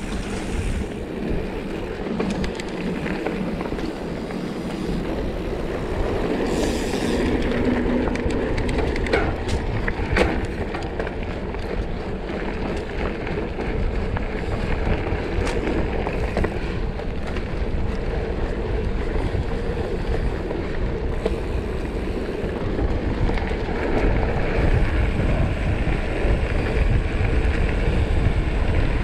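Mountain bike being ridden on a dirt trail: steady rolling noise with a low rumble and a few sharp clicks, getting a little louder toward the end.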